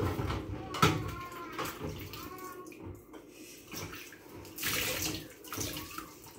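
Washing-up water splashing in a kitchen sink as a spoon is scrubbed by hand with a sponge.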